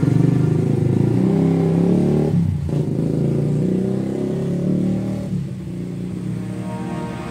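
Background music: a low instrumental passage of held notes that change pitch a couple of times.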